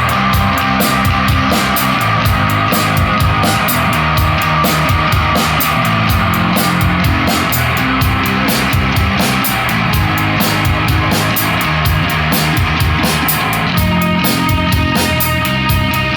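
Live rock band playing an instrumental passage with no singing: guitar over a drum kit, with a steady fast beat on the cymbals. The guitar part changes near the end.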